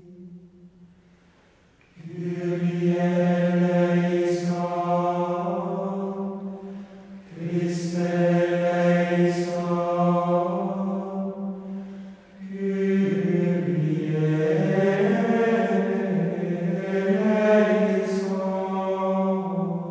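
Low men's voices chanting in unison in the manner of monastic plainchant, on long held notes. The chant comes in three phrases, the first starting about two seconds in, after a near-silent gap.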